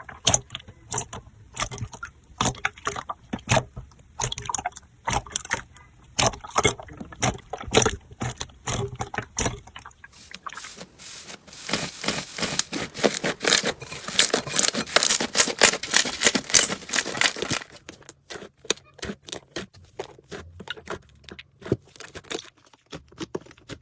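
Slime being squished and pressed by hand, giving a stream of sticky clicks and pops. For several seconds in the middle the popping thickens into dense, louder crackling, then thins out again to separate clicks.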